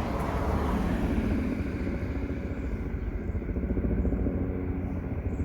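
A motor vehicle engine running steadily, a low rumble with fast even pulsing.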